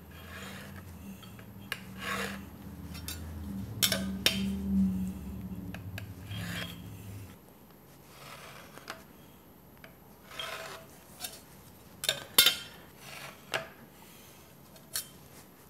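Height gauge scriber scratching bend lines into a sheet metal plate, in a series of short scraping strokes. During the first half, the gauge's base also slides across the granite surface plate with a low rumble.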